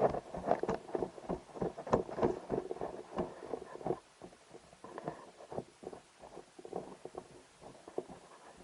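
Quick, irregular footsteps with rustling, as of someone hurrying on foot. Dense and loud for about the first four seconds, then sparser and quieter.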